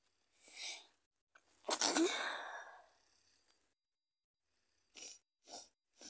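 A woman with a head cold sneezes once, hard: a quick breath in, then a loud sudden sneeze that trails off over about a second. Near the end come two short sniffs.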